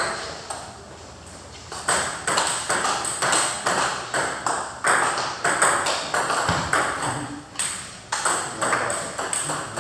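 Table tennis rally: a celluloid ping-pong ball clicking off paddles and the table at about two to three hits a second, starting about two seconds in.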